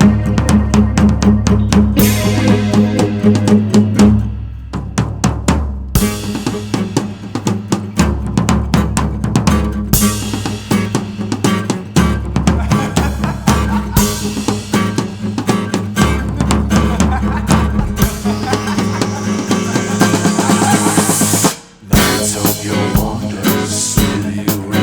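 Instrumental passage of a song: a drum kit plays a busy beat with bass drum, snare and rolls over sustained bass and other pitched instruments. The whole band stops for a moment near the end, then comes back in.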